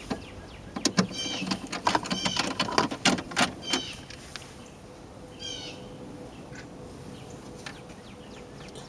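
Sharp clicks and knocks of the car radio and plastic dash trim being handled and pushed into place, over the first four seconds. A bird chirps repeatedly in the background.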